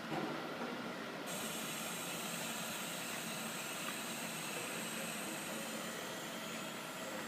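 Vacuum test chamber running steadily with a faint hum, and a hiss of air that switches on about a second in and holds.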